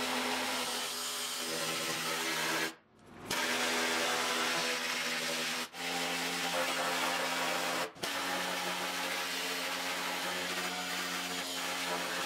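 Pneumatic needle scaler hammering rust off the steel of a car's rear wheel well: a steady buzzing chatter. It cuts out for about half a second some three seconds in, and for an instant twice more later.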